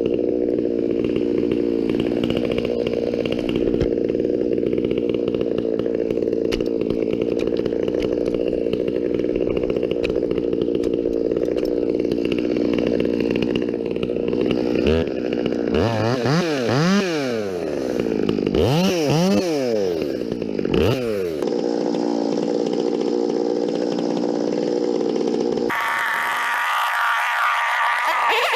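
Two-stroke chainsaw engine running steadily, then revved up and down about four times. Near the end the sound changes abruptly to a different, higher-pitched one.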